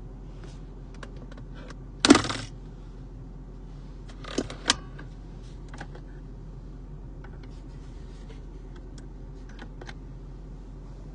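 Hand working the lidded compartment in a 2002 Jaguar XJR's centre console: a short clattering rattle about two seconds in, then two sharp clicks a couple of seconds later, with a few faint ticks between.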